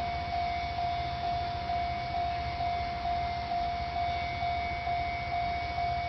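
Japanese railway level-crossing warning bell ringing in an even, repeating pulse of about two strikes a second, over a low rumble.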